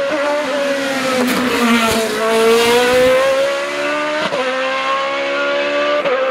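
Sports prototype race car's engine at hard throttle. Its pitch falls over the first two seconds, then climbs again and holds. Short sharp breaks about a second in, then twice later, fit quick gear changes.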